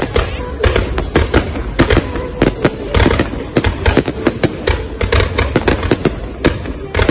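Fireworks display: a rapid, irregular string of sharp bangs and crackles, several a second, over a low rumble.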